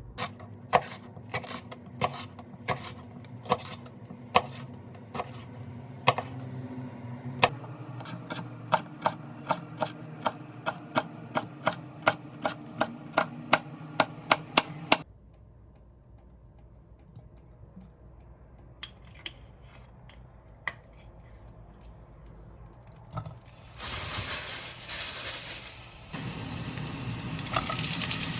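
A knife chopping on a cutting board, steady taps about two or three a second over a low hum, stopping abruptly about halfway through. After a quiet pause, food starts sizzling in a hot frying pan about 24 s in and grows louder.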